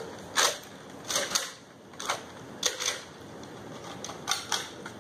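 Short plastic clicks and clatters from Nerf blasters and darts being handled, about eight sharp sounds at uneven intervals.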